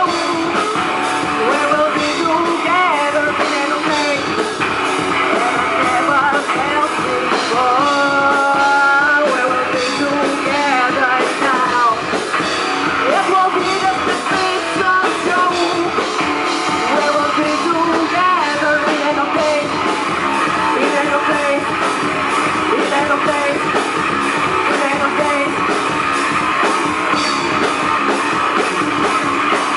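Rock band playing a song, with a singer's voice over guitars and drums.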